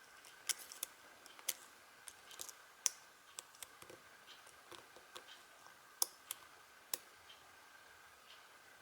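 Thin spring-steel lock pick working the pin stacks of a Union padlock under light tension: irregular small clicks and ticks as pins are lifted and set.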